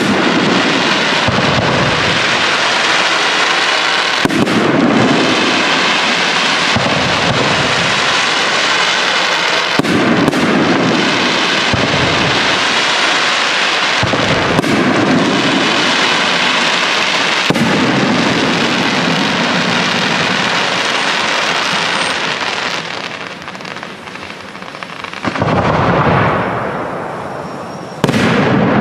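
Aerial fireworks shells bursting in a dense, continuous barrage: overlapping booms over a steady hiss and crackle of burning stars. The barrage thins briefly late on, then two heavy bursts hit near the end.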